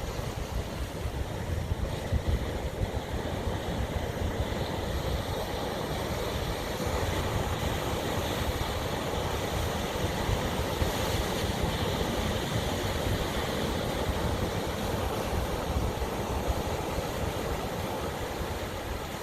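Ocean surf washing onto the shore, swelling louder through the middle and easing off near the end, with wind rumbling on the microphone.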